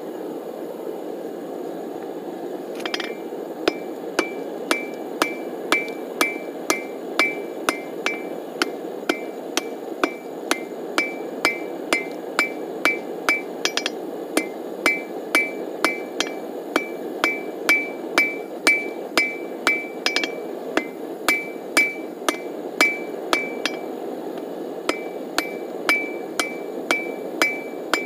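Hand hammer forge-welding a hot steel cable on an anvil. The blows start about three seconds in and come about twice a second, each with a short ring from the anvil, with one brief pause near the end; a steady low rushing noise runs underneath.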